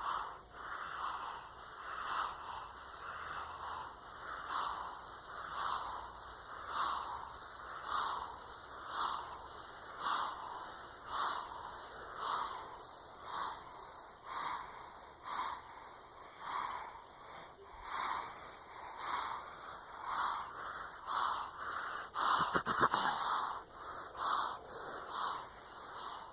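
Newborn baby snoring in sleep: a soft snore with each quick breath, about one a second and very regular. There is a brief louder, scratchier sound near the end.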